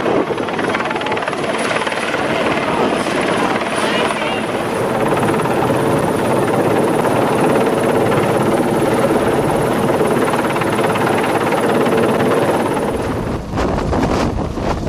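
Atlas Oryx helicopter in flight, its two Turbomeca Makila IA1 turboshaft engines and rotor making a loud, steady roar with a thin high turbine whine. Near the end the whine drops out and the sound turns lower and rougher.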